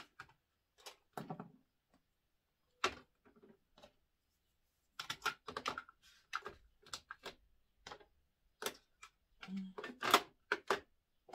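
Plastic makeup products being set down into a clear acrylic makeup organizer: a string of irregular light clicks and clacks, busiest in the second half.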